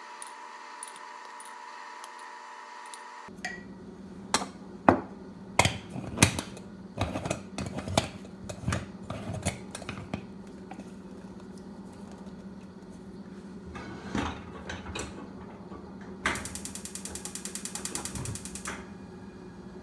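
A small mechanism ratcheting: scattered sharp clicks and knocks, then near the end about two seconds of fast, evenly spaced ratchet clicks. A steady hum at the start stops about three seconds in.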